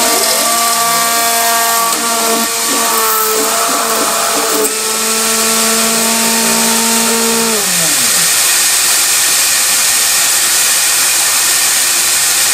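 Home-built CNC router's Chinese spindle running as it mills white acrylic sheet, a loud steady noise, with the stepper motors whining in several tones that shift in pitch as the axes move. About two-thirds of the way through, the whine glides down and stops, leaving the spindle running on its own.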